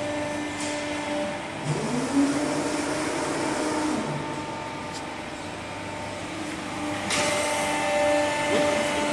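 A 160-ton hydraulic CNC press brake running through an automatic bending cycle: a steady hydraulic pump hum. A tone rises and holds for about two seconds as the ram moves, and a louder rushing noise comes in about seven seconds in.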